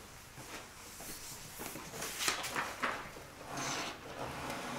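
Wooden wall clock case being handled and turned over on a hard countertop: a run of short scrapes and knocks about two seconds in, and another near the end.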